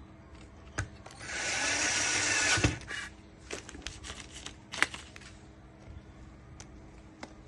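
A hiss lasting about a second and a half that ends in a sharp click, then a scatter of light clicks and taps, as of small tools handled on a workbench during electronics repair.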